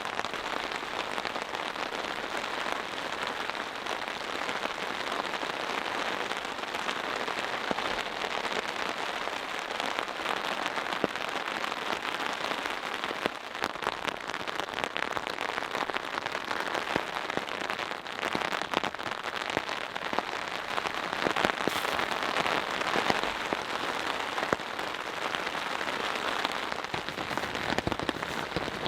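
Steady rain drumming on a tarp shelter, an even hiss dotted with many separate drop hits.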